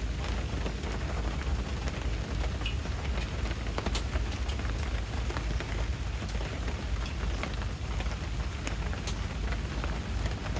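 A sudden rain shower falling steadily, with many scattered sharp drop hits and a steady low rumble underneath.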